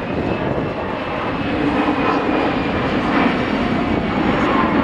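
Twin-engine jet airliner flying low overhead: a steady, loud jet engine roar with a faint thin whine above it.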